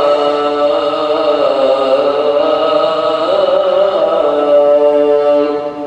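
A single man's voice chanting in Arabic, one long drawn-out phrase whose pitch glides up and down in ornamented turns. The phrase ends just before the end and its sound dies away slowly in the mosque's echo.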